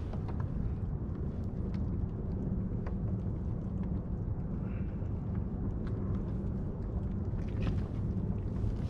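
Steady low wind rumble buffeting the microphone on open water, with a few faint clicks and taps scattered through it.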